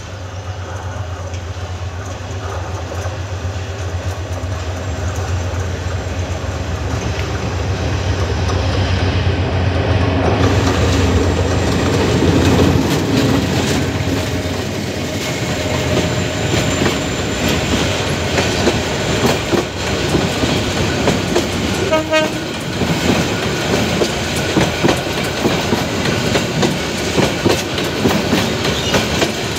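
A Bangladesh Railway diesel-hauled passenger train passing close by. The locomotive's low hum builds over the first ten seconds or so, then the coaches' wheels clatter steadily over the rail joints.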